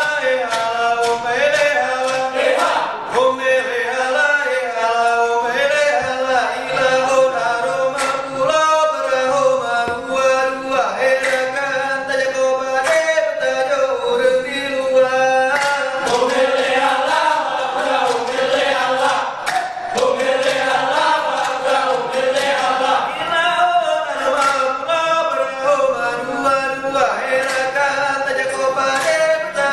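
Likok Pulo performance song: men's voices chanting in unison, accompanied by a steady beat of sharp percussive strikes.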